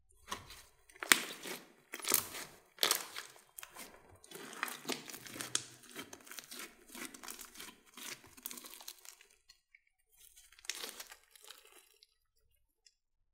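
Hands squeezing and kneading glossy slime mixed with foam beads: irregular sticky crackles and pops, loudest in the first few seconds, with a brief lull and a last cluster near the end.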